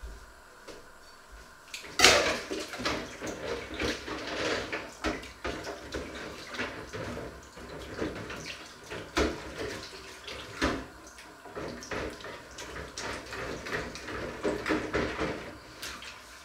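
Washing up by hand in a stainless-steel kitchen sink: water running and splashing, with frequent knocks and clinks of dishes and pans. It starts suddenly about two seconds in.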